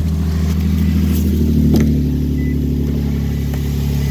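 2003 Infiniti G35's 3.5-litre V6 idling steadily just after starting, running on its freshly replaced drive belts.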